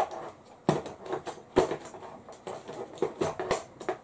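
Rummaging among small objects: a quick, irregular run of sharp clicks and knocks as things are picked up and set down on a worktable, with no steady sound between them.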